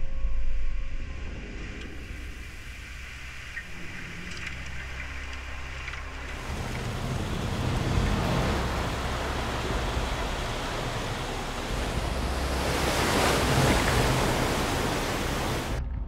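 Seawater flooding into a warship that is being scuttled: a low rumble at first, then from about six seconds in a rushing, surging wash of water that swells to its loudest near the end and cuts off abruptly.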